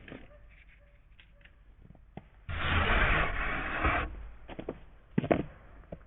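A rough rubbing, scraping noise lasting about a second and a half near the middle, with scattered knocks before it and a couple of sharper knocks after it.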